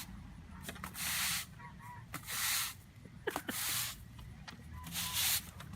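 A series of short, sharp hisses, about five of them, each lasting about half a second and coming roughly a second apart.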